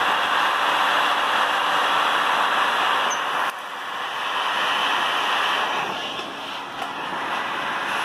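Black & Decker heat gun blowing a steady hiss of hot air onto a gearbox bearing held in a press. The bearing is being heated to expand and free it, rather than knocked out, which risks cracking the bearing race. The hiss drops suddenly about three and a half seconds in, then builds back up.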